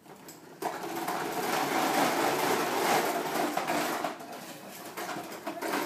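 Plastic toy lawn mower pushed across a tile floor, its wheels and mechanism giving a steady clattering rattle. It starts about half a second in and eases off briefly near the end.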